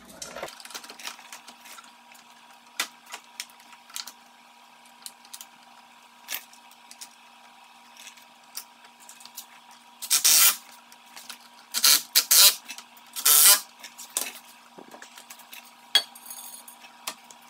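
Metal clinks and knocks as a steel mounting bracket is handled and fitted against a car's bumper beam, with three louder, harsh half-second rattles between about ten and fourteen seconds in, over a faint steady hum.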